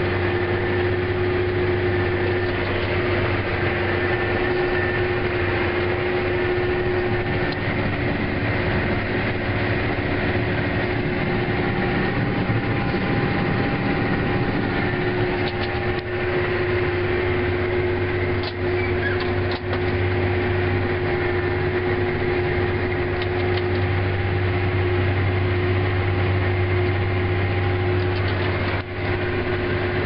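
Farm tractor's diesel engine running steadily under load, pulling a plough, heard from inside the cab as an even drone with steady tones. A few faint clicks come through around the middle.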